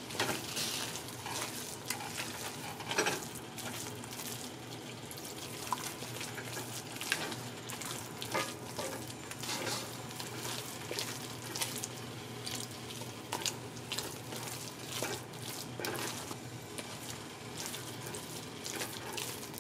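Wooden spoon stirring and mashing wet pumpkin in an enamelled pot, working in a splash of water just added, with irregular soft squelches and scrapes over a steady faint hiss.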